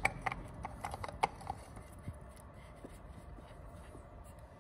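A few small clicks and knocks as a new spin-on oil filter is offered up and started on its thread by hand under a motorcycle engine, most of them in the first second and a half.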